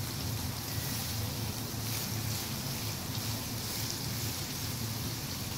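Freshly added sliced onions sizzling steadily in hot oil in a nonstick pan, at the start of frying toward golden brown, stirred now and then with a spatula. A low steady hum runs underneath.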